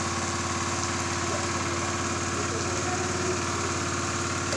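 Small engine-driven water pump running steadily at a constant speed.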